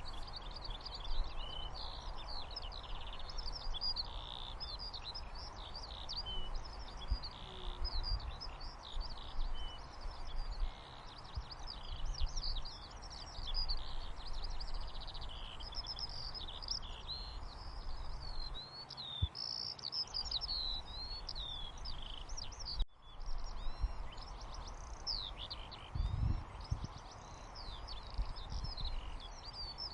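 Recorded birdsong ambience: many small birds chirping and twittering continuously over a steady soft hiss of white noise. A momentary dropout about three-quarters of the way through.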